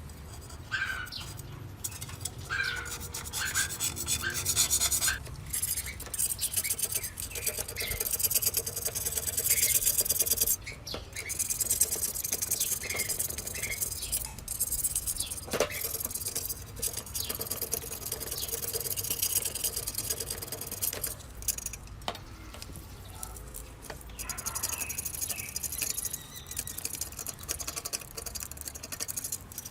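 Hand rubbing and scraping on a rusty scooter part during restoration: repeated uneven abrasive strokes, with small squeaks here and there.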